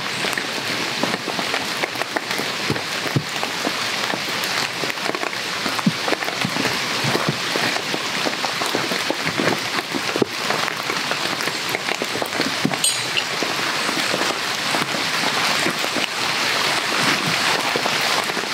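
Heavy rain falling steadily, a dense patter of countless drops.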